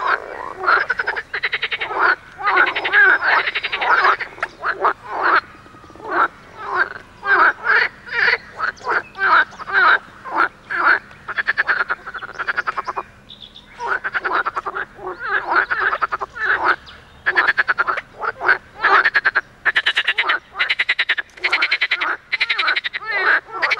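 A chorus of water frogs (Pelophylax) croaking, one frog blowing out the paired vocal sacs at the sides of its head. The calls come one after another, each a run of fast pulses, with a short pause about halfway through.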